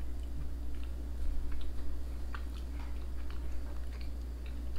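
People chewing ginger loaf cake, with scattered light clicks of metal forks on ceramic plates and a steady low hum underneath.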